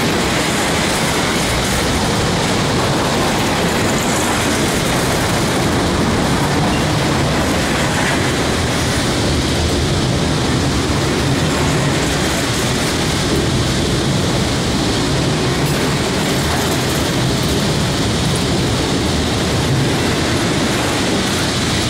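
Loaded double-stack container well cars of a freight train rolling steadily past close by: a continuous rumble and rattle of steel wheels on rail.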